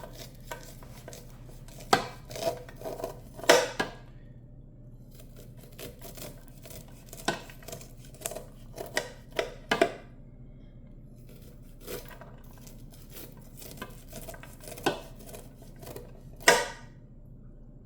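A knife cutting kernels off an ear of white corn, with irregular scrapes and clicks as the blade runs down the cob and knocks against the dish. Two strikes, about three and a half seconds in and near the end, are the loudest. A low steady hum runs underneath.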